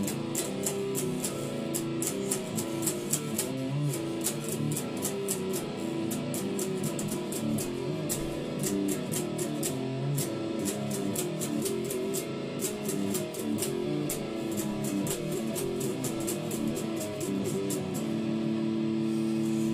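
Electric guitar played live: a fast picked riff with the notes changing quickly, settling into a held, ringing chord near the end.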